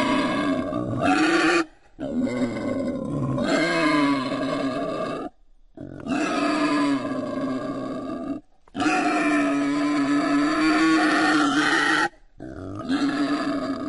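Wild boar calls: five long, pitched, strained calls, each two to three and a half seconds, broken by short silences that cut in abruptly.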